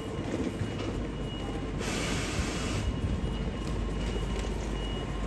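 Steady rumble and hum of electric trains standing at an underground station platform, with a hiss lasting about a second in the middle.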